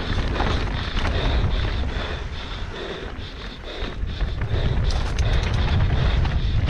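Mountain bike descending a rough dirt trail at speed: wind buffeting the microphone and the bike rattling and clattering over the ground, getting louder about two-thirds of the way through.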